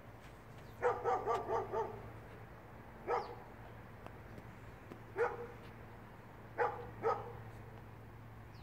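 Bengal cat making short chirping calls: a quick run of about five about a second in, then single chirps spaced a couple of seconds apart, the last two close together.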